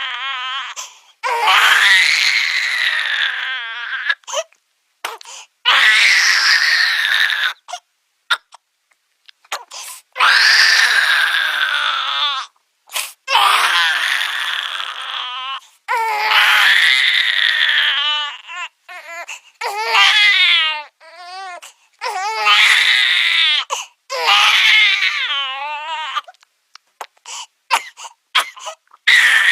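Cartoon baby crying sound effect: a string of long, high wails, each two to three seconds, about eight of them, broken by short wavering sobs and brief catches of breath.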